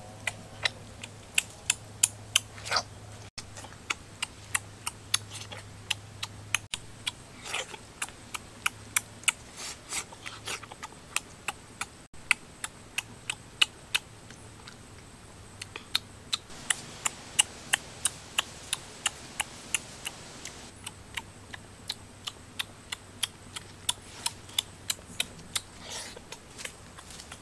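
A steady run of sharp clicks, about two or three a second, over a faint low hum.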